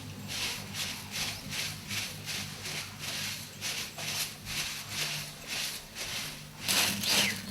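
Broom sweeping a floor, brushing in quick even strokes, about three a second.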